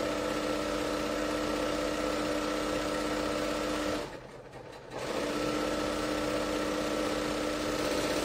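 Bernina L 890 serger running at a steady speed as it stitches a two-thread flatlock seam through batting, its knife trimming the edge as it goes. It stops for about a second near the middle, then starts again.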